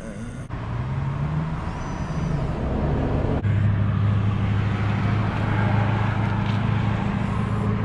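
A motor's low, steady hum that climbs in pitch about a second in, then holds a strong steady note from about three and a half seconds in.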